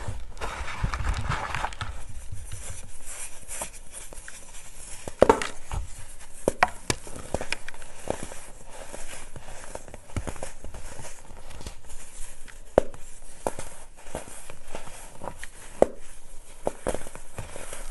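Hands squeezing and crumbling clumps of packed baking soda close to the microphone: a steady soft crunching and the hiss of powder sifting through the fingers, with sharper crunches now and then, the loudest about five seconds in.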